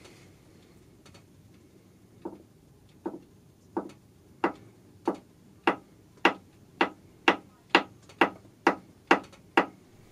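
Soft hammer tapping lightly on a milling machine's cutter holder to nudge the cutter a micron or so at a time, a fine adjustment of the cutter's position. About fourteen short taps begin about two seconds in, coming quicker and getting louder toward the end.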